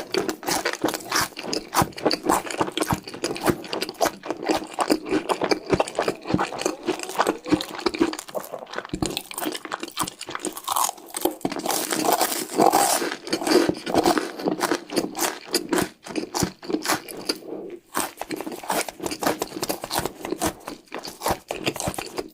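Close-miked crunching and chewing of cheese-stick snacks: a dense, fast run of crisp crackles with a couple of brief pauses.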